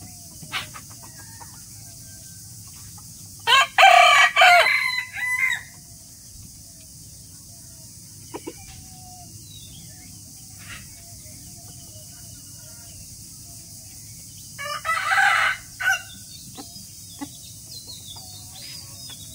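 Rooster crowing twice: a long, loud crow about three and a half seconds in and a shorter one about fifteen seconds in. Faint clucking comes in between.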